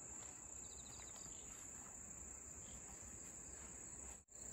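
Faint, steady, high-pitched chorus of crickets and other grass insects singing in the grass. It cuts out for a moment near the end.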